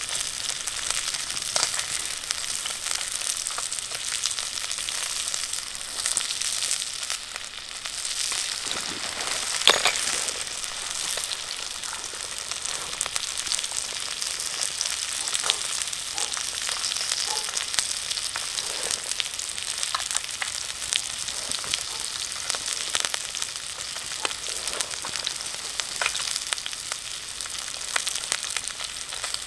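Food frying over a fire: a steady high sizzling hiss with frequent small pops and crackles, and one sharper pop about ten seconds in.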